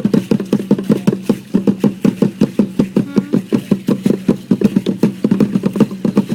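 Drum beaten in a fast, even rhythm, about seven beats a second, for a pre-Hispanic dance.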